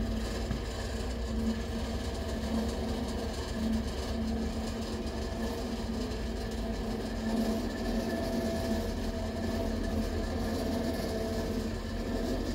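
Battery-powered fuel priming pump of an EMD SD38-2 locomotive running, a steady hum with a constant low whine, priming the diesel engine's fuel system before cranking. It comes on right at the start and runs without change.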